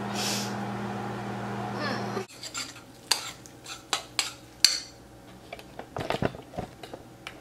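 A steady appliance hum cuts off suddenly about two seconds in, followed by a metal spoon clinking and scraping against a bowl as oatmeal is stirred.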